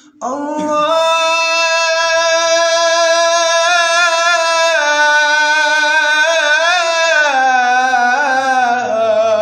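A man's voice chanting the word "Allah" in an Arabic devotional supplication, held as one long unbroken note for about nine seconds. The note wavers in a melismatic ornament about six seconds in, then steps down in pitch a little after seven seconds.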